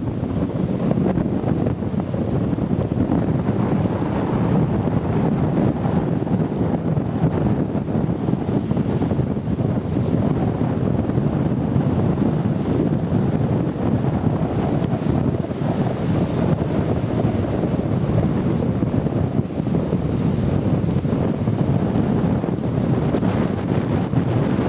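Very strong wind buffeting the microphone in a steady, fluttering rumble, with surf breaking beneath it.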